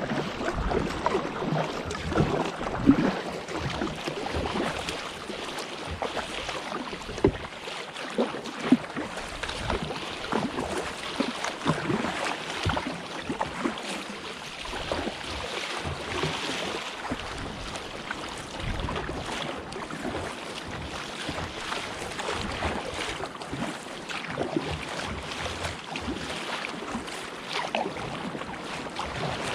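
Sea water sloshing and splashing around a kayak, with irregular sharper splashes and knocks scattered through it.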